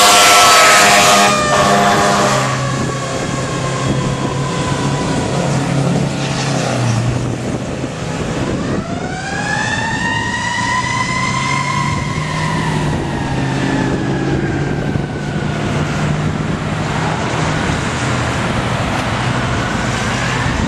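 Fire engine responding: a loud air-horn blast in the first couple of seconds as a mechanical siren winds down, with the diesel engine's low rumble beneath. About eight seconds in, the mechanical siren winds up again, peaks and then slowly falls away.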